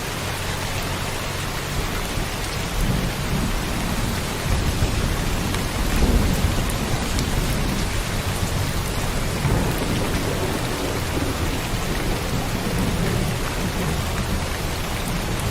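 Steady heavy rain with low rolling thunder that swells several times, loudest about six seconds in.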